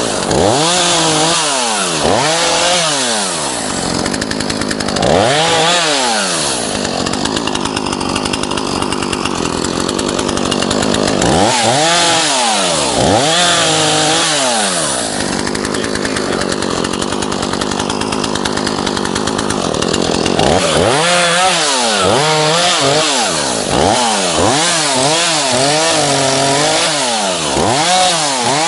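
ZimAni two-stroke gasoline chainsaw at work, revved up and down again and again in short bursts, with two stretches of several seconds each held at high revs.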